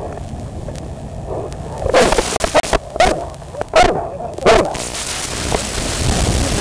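A rubble-search dog barking about four times, the barks coming roughly a second apart, followed by a steady rushing noise.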